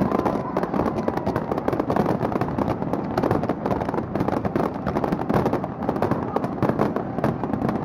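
Fireworks display: a dense, continuous crackle of many small rapid bangs and pops.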